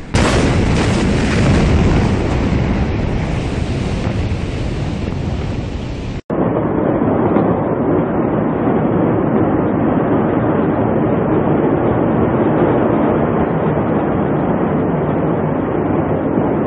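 Loud, continuous rumbling noise of a huge blast and fire recorded on phone microphones, with wind buffeting the mic. About six seconds in it cuts abruptly to a second recording that sounds duller and runs on steadily.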